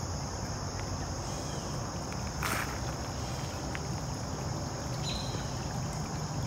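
Steady high-pitched drone of insects calling, over a low rumble, with one brief rustle about two and a half seconds in.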